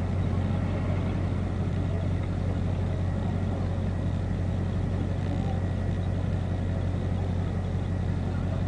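Engines idling with a steady low rumble that never revs or changes, from the sled tractor and the waiting diesel pull truck.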